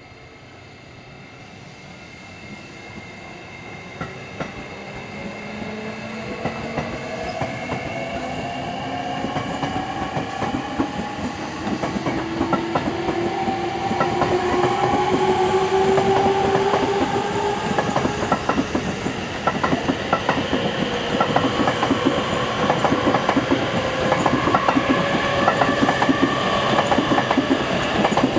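JR East E653-series electric train pulling away from a station. Its motor whine rises steadily in pitch as it accelerates, while the wheels clack over the rail joints, faster and louder toward the end as the cars pass close by.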